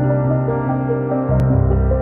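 Background music: a calm ambient piece of held melodic notes over a steady low drone.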